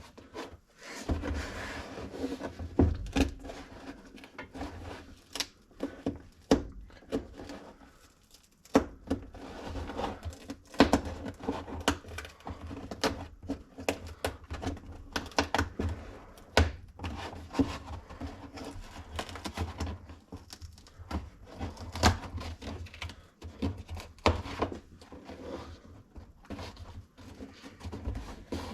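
Vinyl being peeled back off the outside edge of a 2008 Ford Mustang's fibreboard door panel, with irregular clicks, knocks and rubbing as the panel is handled, and a brief lull about eight seconds in.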